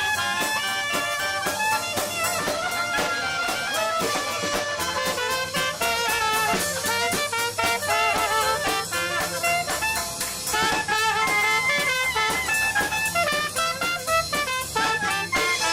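A band playing upbeat jazzy music, a brass melody over a steady drum-kit beat.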